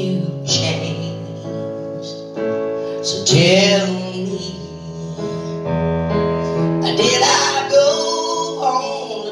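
Live song: a woman singing into a microphone over sustained electric keyboard chords, heard through the hall's PA.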